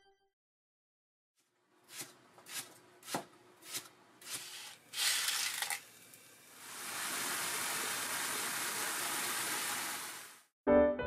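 Six sharp knocks about half a second apart, then a steady sizzling from a frying pan of clams and sliced leek that lasts about four seconds and cuts off suddenly.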